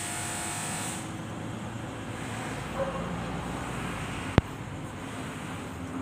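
Steady background rumble and hiss, with one sharp knock a little over four seconds in.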